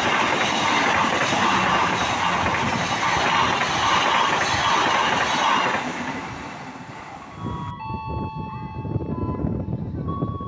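Diesel-electric locomotive-hauled train passing close by, a loud dense rumble of engine and wheels that fades away after about six seconds. Music starts near the end.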